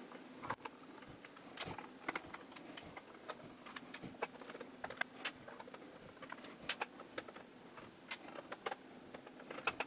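Faint, scattered clicks and taps of a screwdriver and small screws being handled while loosening a projector's parts during disassembly, over a faint steady hum.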